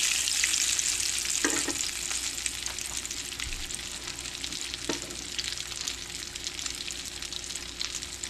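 Cherry fried pies of canned-biscuit dough frying in vegetable oil in a cast-iron skillet: a steady sizzle with fine crackling that eases off over the first few seconds. A couple of faint clicks come through it.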